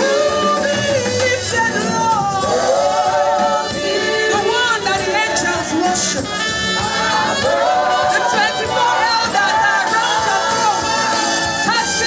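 Live gospel worship music: voices singing held, wavering melody lines over a steady musical accompaniment.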